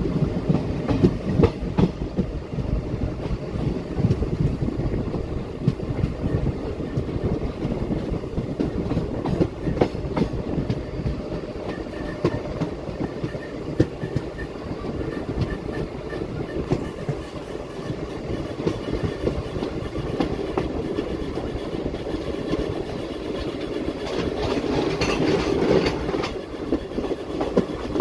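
Passenger express train running along the track, heard from an open coach door: a steady rumble of wheels on rails with irregular clicks over the rail joints. It grows louder for a few seconds near the end.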